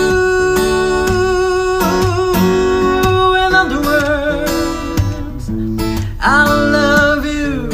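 Acoustic guitar played with a male voice singing over it, holding long notes with vibrato; a second sung phrase comes in about six seconds in, its notes sliding down at the end.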